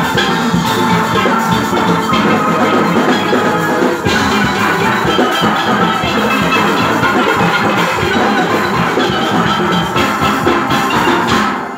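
Junior steel orchestra playing a Panorama arrangement: many steelpans together over drums and percussion, at full volume until the music stops abruptly just before the end.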